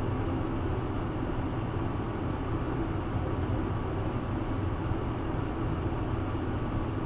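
Steady room tone: a constant low hum with hiss, like a fan or air handling, with a few faint computer mouse clicks as part balloons are placed on a CAD drawing.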